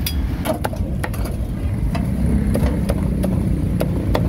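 Sharp, irregular knocks of a cleaver chopping roast meat on a wooden chopping block, about a dozen in four seconds, over a steady low rumble of street traffic.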